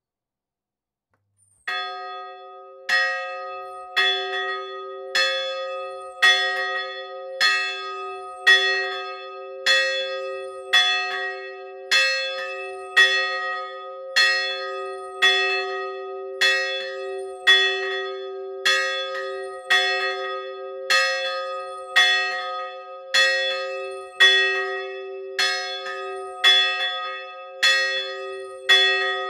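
A single swinging bronze church bell being rung, its clapper striking about once a second in an even rhythm, each stroke ringing on into the next. It starts with a first stroke a little under two seconds in.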